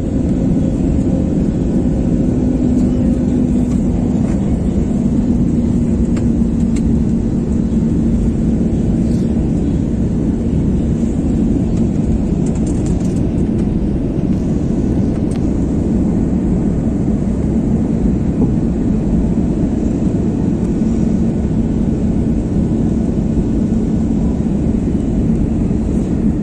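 Steady rumble of a jet airliner's engines and rushing air heard from inside the cabin, with a low steady hum running under it.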